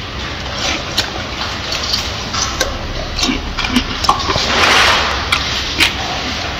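Silverback gorilla chewing and biting a red bell pepper close to the microphone: irregular wet crunches and mouth smacks, with a louder rushing, wet noise for about a second a little past the middle.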